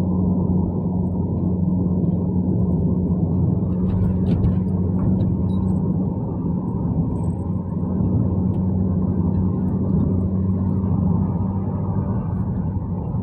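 Steady drone of a car's engine and road noise heard from inside the cabin, with a low hum that holds one pitch.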